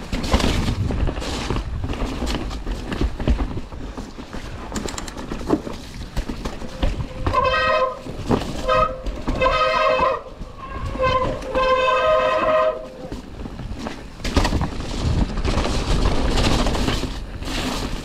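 Mountain bike descending a trail, with wind on the microphone and tyre and trail rumble throughout. From about 7 to 13 seconds in there are four or five bursts of a steady high squeal from the bike's disc brakes as the rider brakes on the wet descent.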